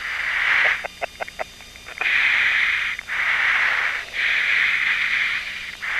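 Hiss over the F-15's cockpit intercom, coming and going in blocks about a second long with short gaps between them. A short run of sharp clicks comes about a second in.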